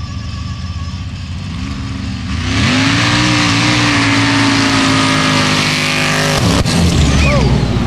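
Formula offroad buggy engines idling on the start line, then revving up and launching at full throttle about two and a half seconds in, loud and hard-running for several seconds. The sound cuts off suddenly near the end and gives way to other racing engines whose pitch sweeps up and down.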